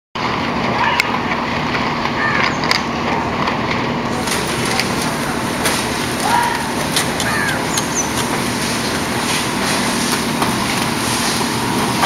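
A steady machine running while wet concrete is raked and spread over a steel rebar mesh, with repeated short clicks and scrapes of tools in the concrete.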